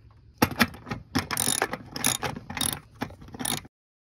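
Socket ratchet wrench clicking in quick bursts, several back-and-forth strokes, as a bolt on a metal mounting bracket is tightened down. The sound cuts off abruptly near the end.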